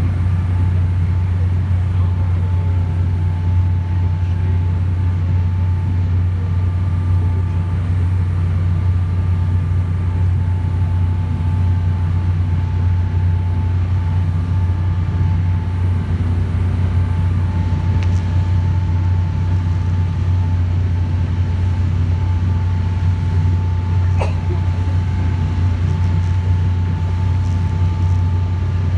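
Boat engine running steadily: a constant low drone with a faint steady whine above it, heard from on board.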